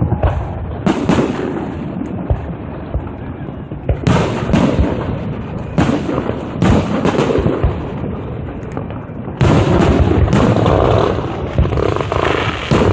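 Fireworks display: a string of loud aerial bursts and booms, each ringing on briefly after the bang. The bursts come a second or more apart at first, then crowd together and get louder about nine and a half seconds in.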